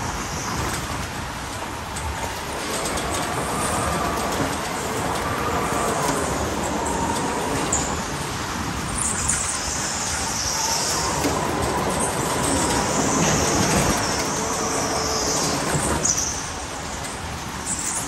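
Electric go-kart running flat out: the motor's whine rises and falls in pitch with speed, and the tyres squeal now and then through the corners, over a steady rush of rolling and wind noise.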